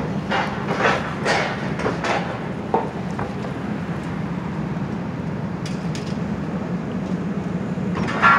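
Distant tracked excavator's diesel engine running steadily while it tears into a building, with scattered metallic clanks and scrapes of debris, several in the first two seconds and the loudest near the end.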